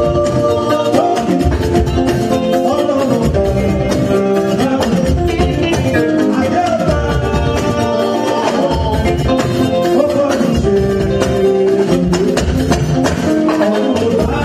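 Loud upbeat dance music playing without a break, with a steady beat.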